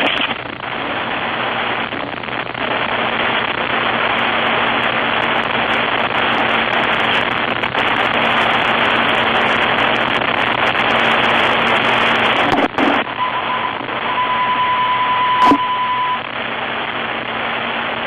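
Steady hiss of dead air on a NOAA Weather Radio broadcast channel, with a faint low hum; the uploader takes it for a microphone left on after the test. About thirteen seconds in, a faint steady tone near 1 kHz comes in for about three seconds, with a single click near its end.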